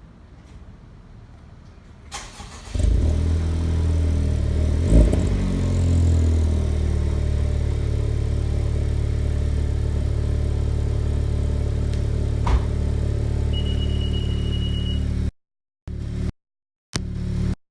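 Honda Civic Type R (FK8) 2.0-litre turbocharged four-cylinder started through a freshly fitted Invidia front pipe and Q300 cat-back exhaust. It cranks briefly about two seconds in and catches with a short flare in revs, then settles into a steady idle.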